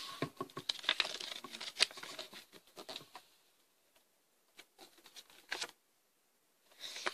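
A small paper fold-out booklet being unfolded and handled, crinkling and rustling for about three seconds, then a few faint ticks and a short rustle near the end.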